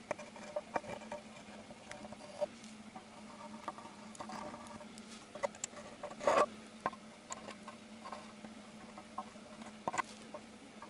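Faint small clicks and scratchy rustles of a tube of sealant being handled and squeezed against an aluminium valve cover while a bead of sealant is laid into its gasket groove, with a louder rustle about six seconds in. A steady low hum runs underneath.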